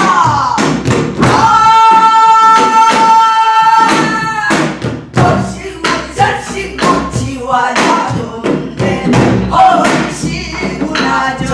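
Two women singing a Korean Namdo folk song in full, open-throated voice, gliding down into a long held note. After about four seconds, strokes on a buk barrel drum and a janggu hourglass drum come in under shorter sung phrases.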